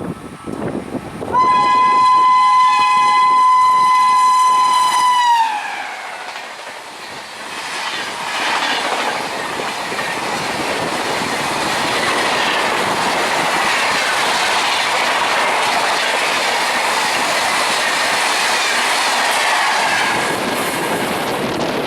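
An Indian Railways train's horn sounds one loud held note for about four seconds, its pitch sagging as it is released. The train then rushes past with a steady roar of wheels on rail and a clickety-clack of the rail joints.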